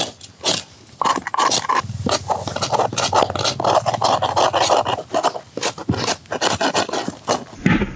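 Rapid, continuous scraping and rasping, many quick strokes close together, starting about a second in and stopping shortly before the end.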